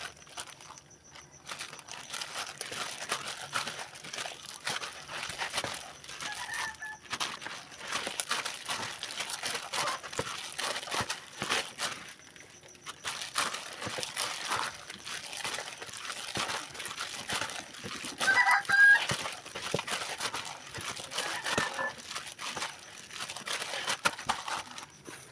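Plastic-gloved hand kneading and squeezing grated frozen tea ice-cream mixture in a plastic basin: continuous crinkling of the glove and squishing of the icy slush as it is worked smooth. A chicken clucks briefly three times, loudest about two-thirds of the way through.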